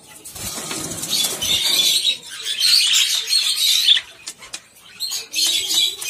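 Budgerigars in the breeding cage chattering and fluttering, loudest from about a second in until four seconds and again near the end. Under it, rustling and scraping as hands open a clay pot nest box fixed to the wire cage.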